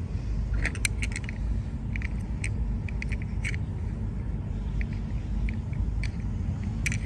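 Light clicks and taps of small die-cast toy cars being picked up, turned in the hand and set down on a wooden bench, scattered irregularly over a steady low rumble.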